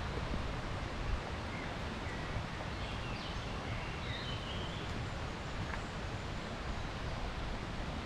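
Outdoor ambience: a steady rush of noise, heaviest in the low end, with a few faint, short bird chirps between about one and a half and four and a half seconds in.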